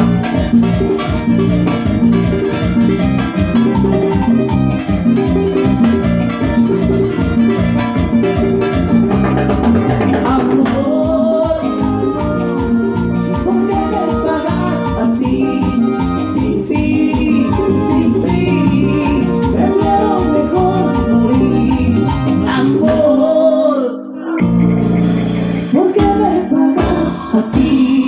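Live band playing Latin dance music through a PA system: electric bass, accordion, drum kit, timbales and keyboards with a steady beat. The music breaks off briefly about 24 seconds in, then comes back.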